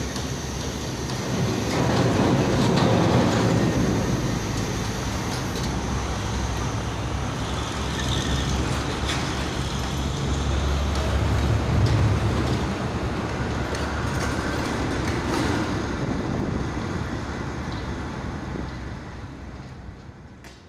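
Excavator's diesel engine running steadily with a heavy low rumble, dying away over the last few seconds.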